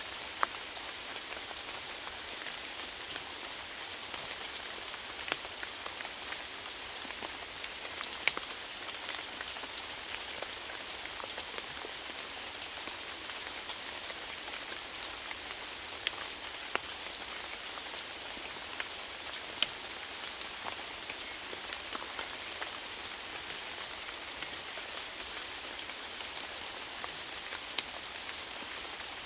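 Steady rainfall: an even hiss of rain on a surface, broken now and then by a single louder drop striking close by.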